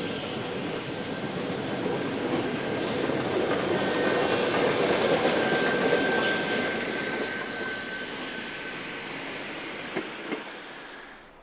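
A train passing on the rails, its running noise building to a peak about halfway and then fading, with a thin steady wheel squeal through the middle. Two sharp clicks near the end.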